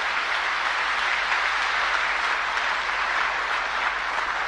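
An audience applauding, a steady dense clapping.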